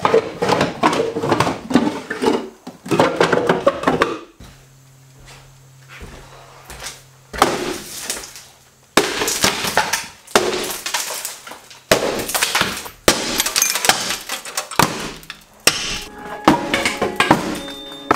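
Sledgehammer smashing kitchen wall cabinets apart: repeated blows with the cracking and crashing of breaking cabinet boards and falling debris. A first flurry of blows is followed by a lull of a few seconds before the smashing resumes.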